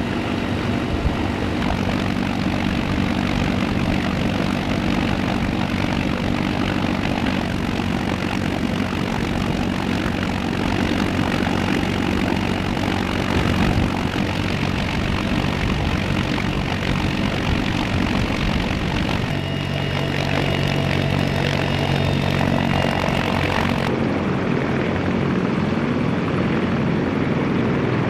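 CH-53E Super Stallion helicopter's three turboshaft engines and rotors running steadily and loudly. The sound changes abruptly twice in the latter part.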